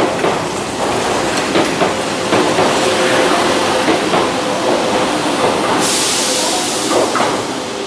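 Kobe Municipal Subway 1000-series train pulling out of the station: repeated clacks of the wheels over rail joints under a steady running hum. About six seconds in, a sudden hiss starts and stops abruptly after nearly two seconds.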